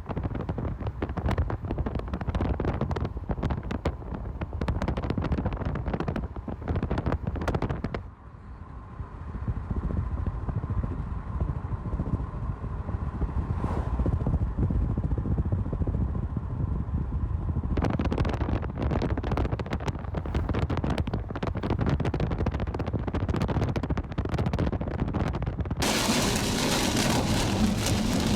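Storm wind gusting and buffeting the microphone over the low rumble of a vehicle. A steadier, quieter stretch sits in the middle, and a sudden dense hiss of heavy rain comes in near the end.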